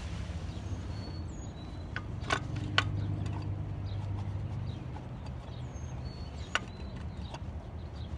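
A few sharp clicks, two close together about two seconds in and one more later, as the metal manual locking hub is handled and seated on the wheel. Short high bird chirps and a steady low hum run underneath.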